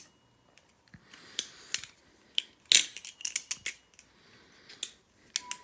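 Balisong (butterfly knife) being flipped through a trick: irregular sharp metallic clicks and clacks as the handles swing around the blade and knock together. The loudest clack comes a little under three seconds in.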